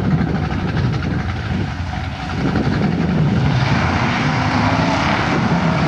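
Golf cart's small engine running as the cart drives past, a steady drone that grows louder and brighter about three seconds in as it comes close.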